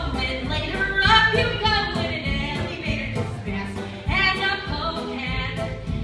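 A woman singing a melody over a backing track with a steady beat.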